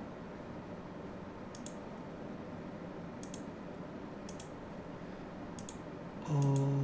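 Computer mouse clicking about five times at irregular intervals of one to two seconds; each click is a quick press-and-release pair.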